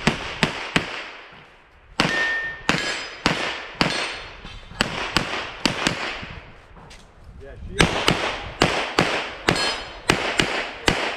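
Rapid pistol fire from a USPSA Carry Optics handgun: strings of quick shots, mostly in pairs, each with a short echo. There are two brief breaks in the firing, one about a second in and a longer one past the middle, while the shooter moves between positions.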